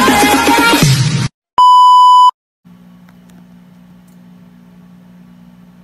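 Electronic intro music that cuts off about a second in, then one loud, steady, high-pitched electronic beep lasting well under a second. After the beep, a faint steady low hum.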